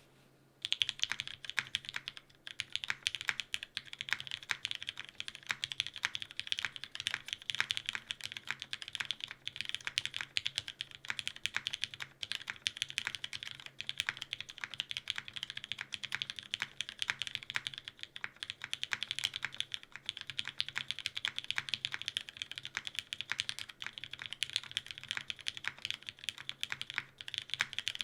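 Continuous fast typing on a gasket-mounted JJW Moment R0 mechanical keyboard with an aluminum plate, lubed and filmed Cherry MX Black linear switches and GMK ABS keycaps. The typing starts about half a second in.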